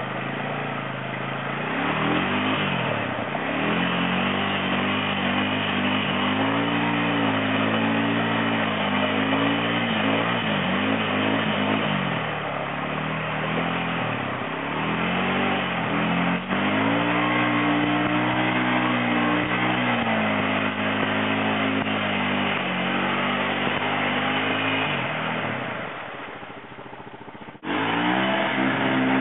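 ATV engine revving up and down again and again under heavy throttle, working to drive a quad out of deep mud. The sound fades somewhat near the end, then comes back suddenly loud.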